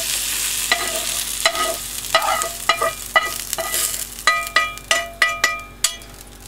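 Sautéed onions, peppers and mushrooms sizzling in a frying pan as they are scraped out with a spatula. A dozen or so knocks of the spatula against the pan ring out, coming faster in the second half, while the sizzle thins as the pan empties.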